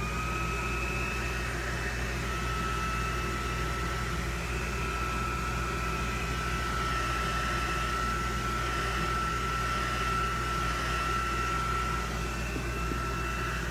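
Handheld craft heat tool switched on and running steadily: a fan blowing with a steady high whine, used to heat-set chalk paste on a silk-screen stencil.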